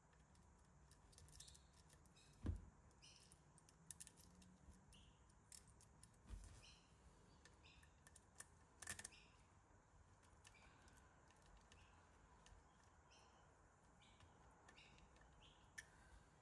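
Faint clicks and ticks of small parts and a screwdriver being handled on a Tamiya radio-controlled truck's gearbox and chassis, with a few light knocks, the sharpest about two and a half seconds in.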